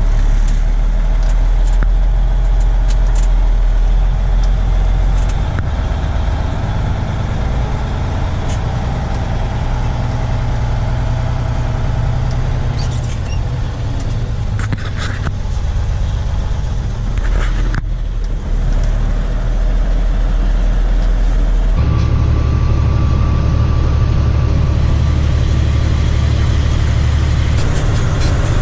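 Loaded truck driving on the road, its engine and road noise a steady low drone, with a few brief clicks around the middle. The drone changes abruptly about twenty-two seconds in.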